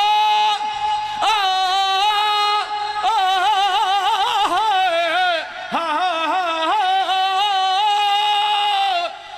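A man singing a devotional qasida in long, drawn-out held notes with wavering melismatic turns, in several phrases that begin with upward glides.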